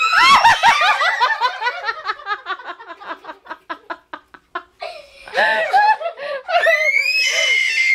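A woman laughing hard and helplessly: a long run of quick "ha-ha" pulses that gradually fades, then a fresh burst of laughter about five seconds in that climbs to high-pitched squeals near the end.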